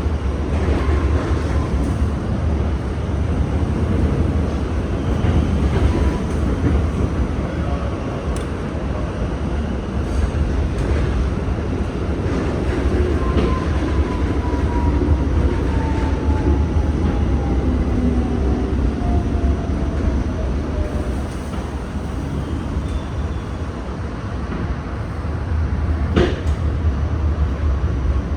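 R68 subway car running along the track: a steady rumble with a few sharp clicks, the clearest near the end. Through the middle a thin whine falls slowly in pitch over several seconds, as the traction motors wind down while the train slows.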